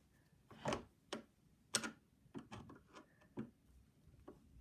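A screw being turned in with a screwdriver on a Late 2006 iMac: a series of faint, irregular clicks and ticks of metal on metal as it is tightened.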